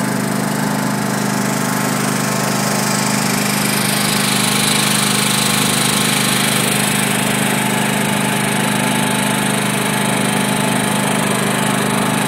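Vehicle engine running steadily as it drives slowly, a constant hum with a hiss over it and no revving.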